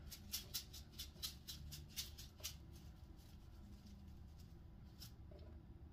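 Faint, quick run of light ticks, about five or six a second for the first two and a half seconds, then a couple of single ticks: small handling noise at a kitchen counter.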